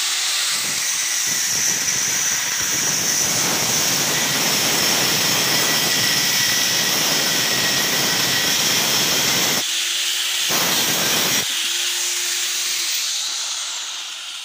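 Angle grinder with a thin cutting disc cutting through the welded-on gear shift pedal of a Honda CG125 engine: a loud, steady grind of metal being cut, with a high whine over it. It breaks off briefly about ten seconds in, then dies away near the end as the grinder winds down.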